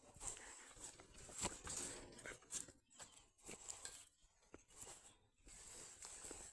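Faint, irregular rustling and soft clicks close to the microphone as a shepherd dog's paw is held and the dog noses at the hand.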